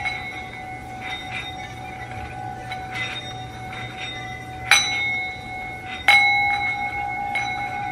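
Singing bowl ringing with a steady tone, its rim worked with a mallet held against it. It is struck twice in the second half, each strike renewing the ring.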